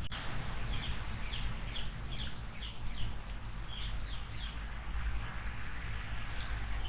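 A small songbird calling: a quick series of short, high, downslurred chirps, about two or three a second, that stops a little past halfway, over a steady low background rumble.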